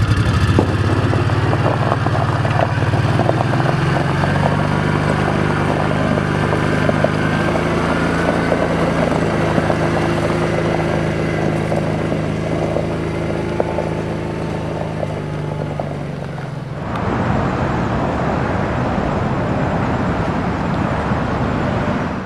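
Vehicle engine running steadily at low speed, its pitch shifting up slightly about three seconds in. About seventeen seconds in it gives way to a steady rushing noise.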